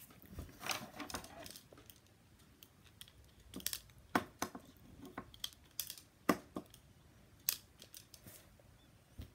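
Irregular small clicks and rustles of close handling near the microphone, a dozen or so sharp ticks spread across several seconds with a small cluster near the start.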